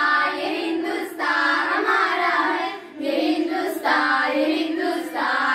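A group of schoolgirls singing a Hindi-Urdu patriotic song together into a microphone, with a short pause for breath about three seconds in.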